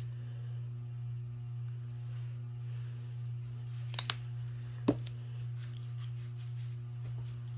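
A steady low hum with a few sharp clicks: two close together about four seconds in and a louder one about a second later.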